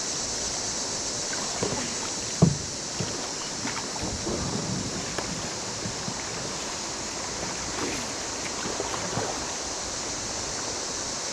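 Kayaks being paddled upstream through rushing river water, a steady rush of water with scattered small knocks and splashes. One sharp knock about two and a half seconds in is the loudest sound.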